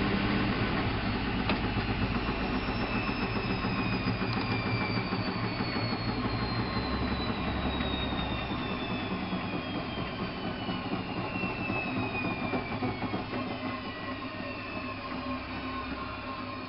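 Alaska WA8200 E washing machine with its drum slowing down after a spin: a steady mechanical running sound with a motor whine that falls steadily in pitch and slowly gets quieter.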